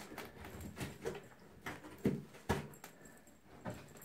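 Bengal kittens' paws thumping and scrabbling on a carpeted cat-tree perch as they pounce at a wand toy: irregular soft knocks, with two louder thumps about two seconds in, half a second apart.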